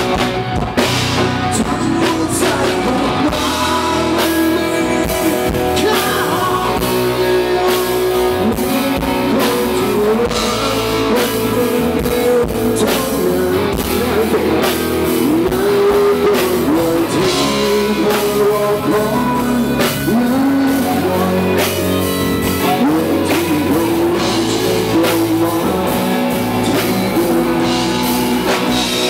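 Live rock band playing: electric guitar, bass and drum kit, with a singing voice, loud and continuous.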